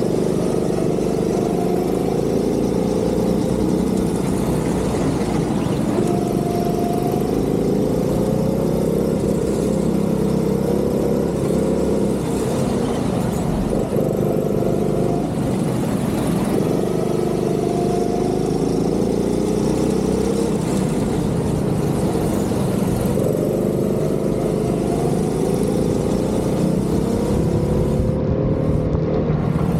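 Go-kart engine running hard through a lap, its pitch climbing under acceleration and falling back several times as it brakes for corners and speeds up again.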